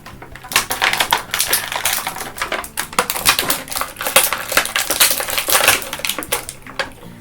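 Cardboard and plastic toy packaging being opened and handled: a busy run of crinkles, clicks and rattles from the plastic tray and box.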